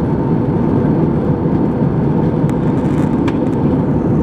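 Jet airliner cabin noise in flight: a steady, even rush of the engines and airflow, low and dense, with a faint hum and a few faint ticks just past the middle.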